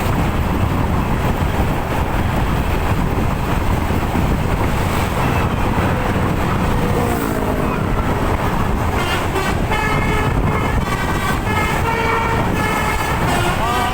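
Loud, steady road and engine noise on the move, with a bus's multi-trumpet telolet air horn sounding a run of stepped notes in the second half.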